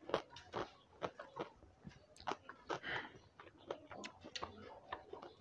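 A person chewing a mouthful of rice and pork close to a clip-on microphone, heard as an irregular run of short clicks and smacks.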